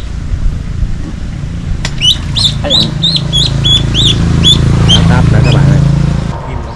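A bird calling in rapid runs of sharp, repeated chirps, about five a second, with a pause of nearly two seconds between runs. Underneath is a low, steady hum that fades out near the end.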